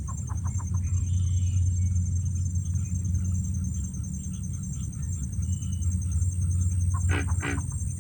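Birds calling from trees: a quick run of about five short notes near the start, then two loud harsh calls about seven seconds in, over a steady low rumble.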